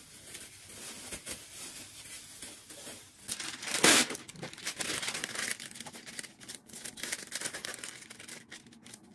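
Thin plastic bag crinkling as it is twisted and tied. About four seconds in, a sheet of parchment cooking paper is pulled from its box and torn off, the loudest sound. Paper rustling and crinkling follow as the sheet is folded.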